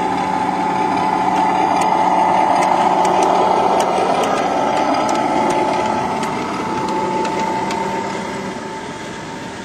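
Miniature 7.25-inch gauge diesel-outline locomotive running past with a rider, its drive giving a steady whine while the wheels click over rail joints. It grows loudest a couple of seconds in, then fades as it draws away.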